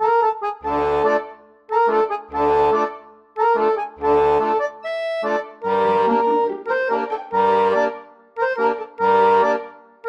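Background music: a light melody played in short phrases over chords, with a low bass note roughly every second and a half and brief gaps between phrases.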